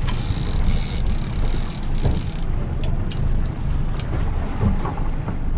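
Boat engine running steadily under wind rumbling on the microphone, with the hiss of wind and water easing about halfway through.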